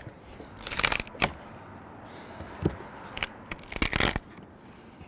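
Hand chisel scraping and prying at wood inside a freshly bored hole in wall sheathing, breaking the wood out: irregular scraping and cracking strokes, the longest about a second in and again near four seconds.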